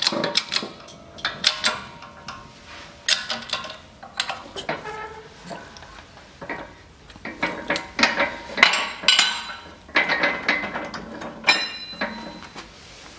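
Irregular metallic clinks and clanks from a shop press and its steel pressing plate as a wheel-bearing outer race is pressed home into a Land Rover Defender front hub, then the plate and tools are lifted off. One clear ringing clink comes near the end.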